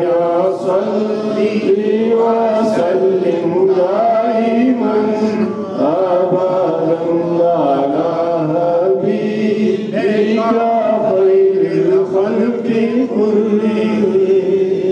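A man chanting Islamic devotional verse into a hand-held microphone: one melodic male voice with long held notes that glide and waver, without pause.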